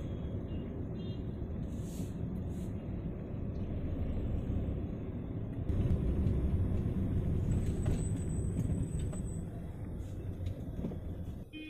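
Steady low rumble of city road traffic: vehicle engines and tyres, a little louder from about six seconds in.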